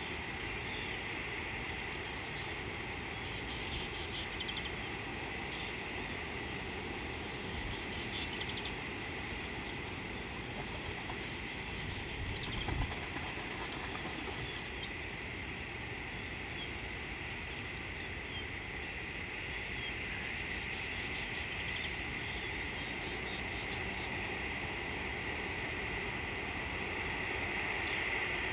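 Steady chorus of crickets trilling, with a few short chirps over it and a constant low rumble of background noise. A brief low thump comes a little before the middle.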